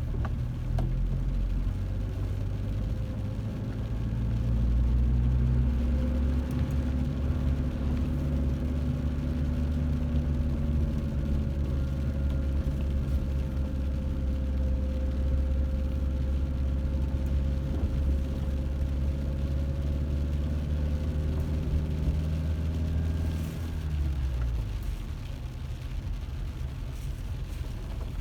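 Car engine and road noise while driving, with a steady engine tone. It gets louder about five seconds in, then the pitch drops and the level falls near the end as the car slows.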